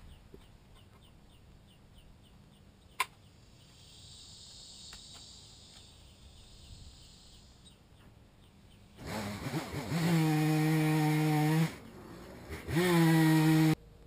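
Two-stroke chainsaw starting up about nine seconds in and running at high revs in two bursts with a short dip between, then cut off abruptly just before the end. Faint insect chirping is heard before it.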